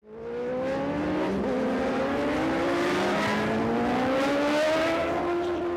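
Racing motorcycle engine accelerating hard, its pitch climbing through the gears with a gear change a little over a second in, then holding steady near the end.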